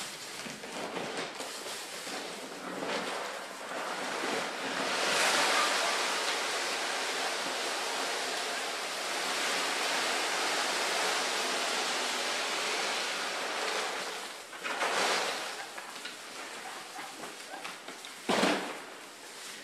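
Hog feed pellets being poured: a steady rushing hiss for about ten seconds, then two short rushes near the end.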